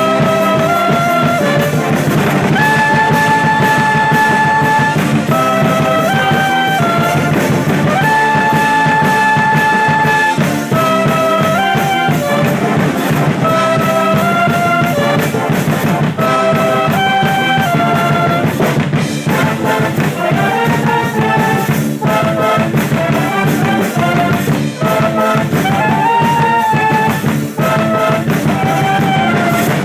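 A university band's brass section playing a lively melody in held and moving notes, with trumpets and trombones over a drum kit beat.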